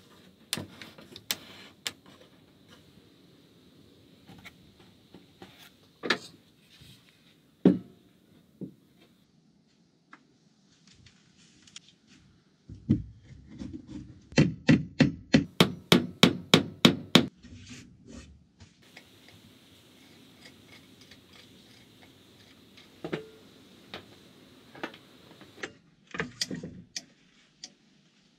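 Scattered knocks and clicks of wooden parts being handled and fitted, then, midway, a quick run of about a dozen sharp hammer taps on wood, about four a second.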